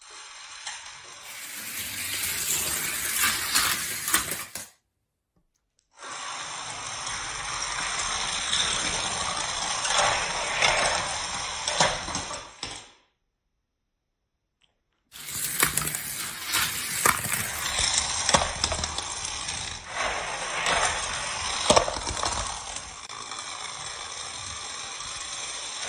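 Small toy cars clattering along plastic Hot Wheels track, with rattling and many sharp clicks and clinks. The sound breaks off into silence twice, about five seconds in and again about thirteen seconds in.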